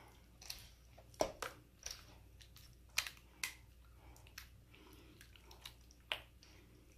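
Hands squeezing and turning raw chicken pieces in a wet buttermilk and egg marinade in a stainless steel bowl: faint, irregular wet squelches, about one or two a second.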